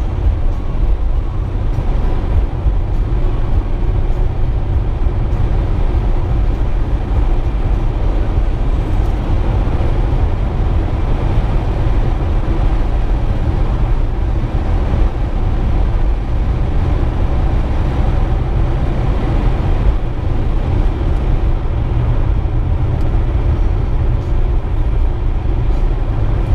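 Steady low rumble of a car driving at highway speed: tyre, road and engine noise heard from inside the cabin.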